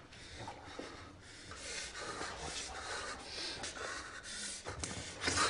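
Shaky, heavy breathing and sniffling of someone crying, with a louder breath about five seconds in.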